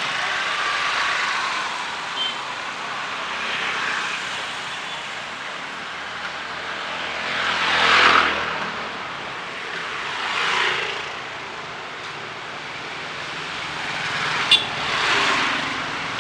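Street traffic on a wet road: several vehicles pass, their tyre noise swelling and fading, the loudest about eight seconds in, over a steady background hiss. A sharp click comes near the end.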